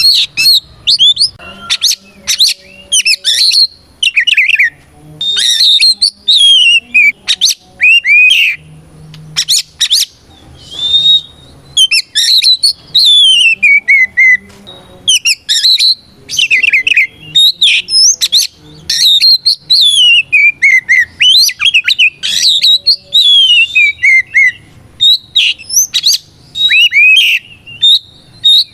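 Oriental magpie-robin singing a long, loud, varied song: fast runs of whistled notes, many sweeping down in pitch, mixed with sharp clicking notes and only brief pauses.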